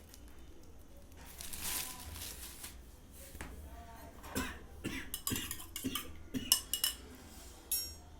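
Clinks and knocks of hard objects being handled: a run of sharp taps between about four and seven seconds in, some with a short ring, after a brief rustle near the start.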